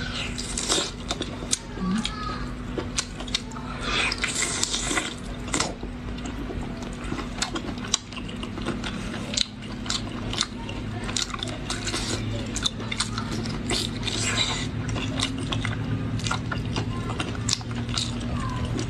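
Close-miked eating: chewing and biting with many short sharp clicks and cracks scattered throughout, over a steady low hum.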